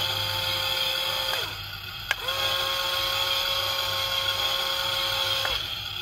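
Small electric motor of a toy RC tank's turret whining steadily as it turns the turret. It stops about a second and a half in, a sharp click follows, and then it runs again for about three seconds before stopping.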